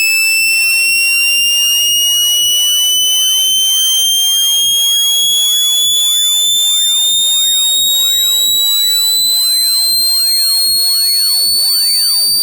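A synthesized speaker-cleaning tone of the kind used to eject water from a phone speaker: a loud, shrill, buzzy tone with strong overtones, sweeping slowly and steadily upward in pitch.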